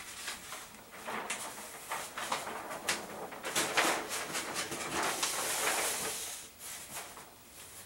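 A large flip-chart paper sheet being lifted and folded back over the top of the pad: repeated crinkling and rustling of paper, with a longer sliding swish about five to six seconds in as the sheet is pressed flat.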